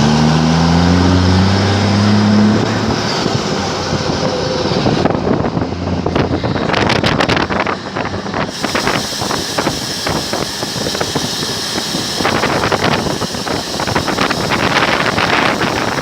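Truck engine with a straight-through exhaust (no muffler), loud; it revs up with rising pitch for about the first two and a half seconds, then runs on with a rough, noisy exhaust sound mixed with wind noise.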